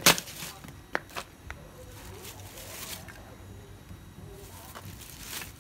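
A plastic bag of coal swung down onto concrete, giving one sharp plastic crackle, then a few light clicks. Softer plastic and glove rustling follows as a glove is pulled on, growing louder near the end.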